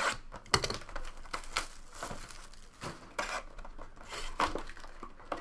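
Cellophane wrap crinkling and tearing with cardboard rubbing as a sealed trading-card hobby box is handled and unwrapped, in irregular crackling rustles with a few louder snaps.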